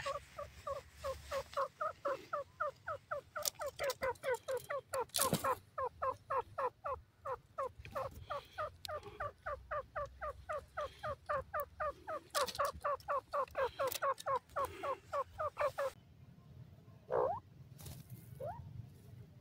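Grey francolin calling: a long run of short, rapid two-part notes, about four or five a second, that stops about sixteen seconds in, followed by a single short louder call and a fainter one near the end.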